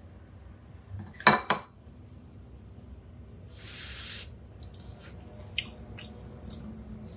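Kitchenware clinking: two sharp clinks of a utensil against dishware about a second in, then a short hiss and several light clicks.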